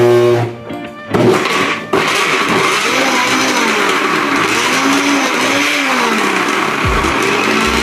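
Kitchen blender switching on about two seconds in and running loud through thick carrot-cake batter. Its motor pitch rises and falls repeatedly as it strains under the load.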